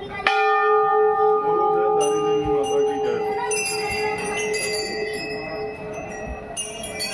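Temple bells being struck. A lower bell rings out about a third of a second in with a long, slowly fading hum. Several higher-pitched bells are struck over it about 2, 3.5 and 6.5 seconds in.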